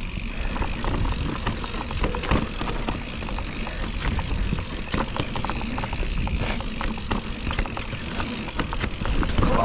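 Mountain bike riding down a dirt trail: a steady rush of tyre and rolling noise with many quick knocks and rattles from the bike.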